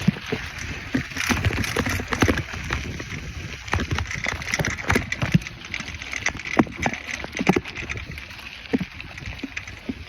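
A bike clattering and rattling over a bumpy road: many irregular knocks and clicks over a steady rushing noise.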